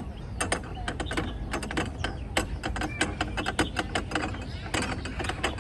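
The bars of a playground activity panel being rattled by a toddler's hands: a rapid, irregular clatter of clicks and clacks.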